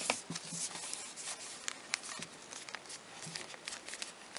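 Hands working a flexible black sheathing tube along a bundle of wires: close rubbing and rustling with many small scattered clicks.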